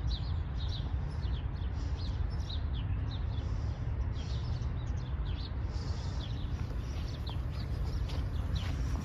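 Small birds chirping, many short high chirps scattered throughout, over a steady low rumble.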